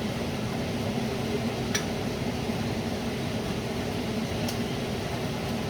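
Steady low mechanical hum, like a fan or air conditioner running, with two faint clicks about two and four and a half seconds in.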